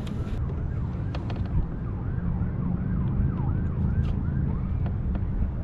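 Wind rumbling on the microphone over open water, with small knocks. Through the middle a faint wavering tone rises and falls about three times a second.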